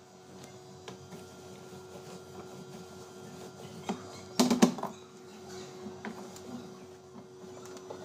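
Light handling and wiping noises on the plastic lid and body of a Sunsui semi-automatic washing machine, with a short clattering knock about four and a half seconds in, over a faint steady hum.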